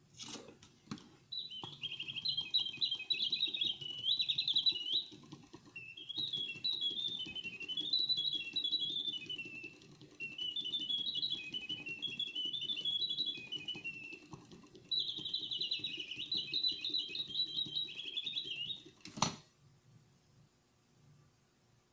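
An 1815 Frères Rochat singing bird box's automaton bird sings: rapid trilling whistles in four phrases, over the low whir of the clockwork movement. A click sounds as it is set off, and a sharp snap near the end as the bird drops and the lid shuts.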